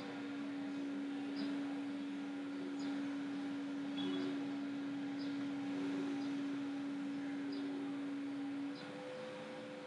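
Steady hum over a constant background hiss, with no other event; the hum drops away near the end.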